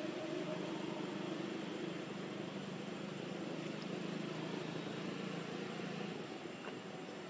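A steady engine hum over background hiss; the low hum drops away about six seconds in.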